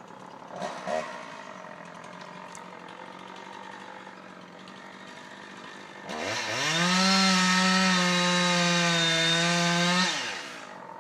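Two-stroke chainsaw running low, then revved up sharply about six seconds in, held at full throttle for about four seconds, and released.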